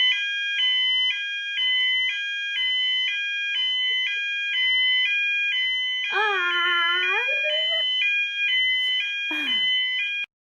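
School fire alarm sounding, very loud, in a two-tone pattern that switches pitch about twice a second, then cutting off abruptly near the end. About halfway through, a voice briefly cries out over it.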